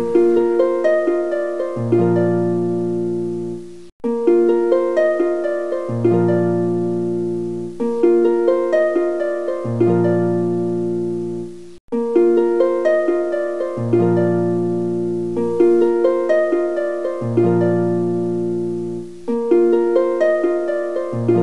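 Background music: a gentle tune of quick plucked notes over low bass notes, the same short phrase repeating, briefly cutting out twice.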